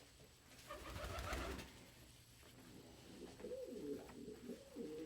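Domestic pigeons cooing softly, a few low coos rising and falling in pitch through the second half, after a brief rustle about a second in.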